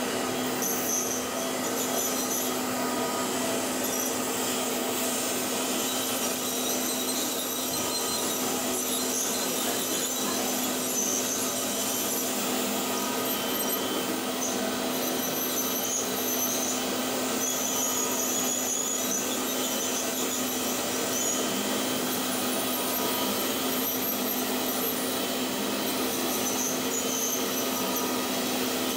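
Ultrasonic dental scaler with water spray working on a dog's teeth to remove tartar: a steady hiss with a low hum underneath and short high-pitched whines on and off as the tip works along the teeth.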